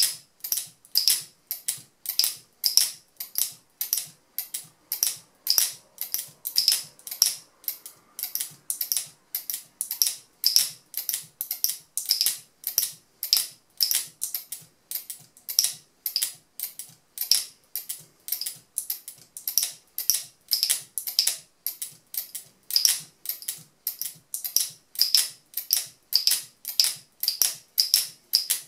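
Locking latch of a plastic speargun camera mount snapped open and shut over and over, giving sharp, high clicks in quick clusters about once a second, at a steady pace, as the lock is cycled in a durability test.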